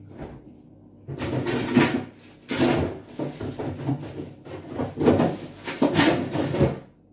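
Hard plastic parts of an ice cream maker (paddle, clear lid, motor unit) being handled and fitted over the freezer bowl, rubbing and scraping against each other in about four noisy bursts.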